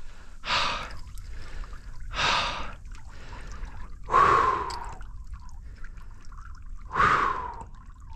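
A man breathing hard and out of breath after a long fight with a big fish: four heavy gasping breaths, about two seconds apart.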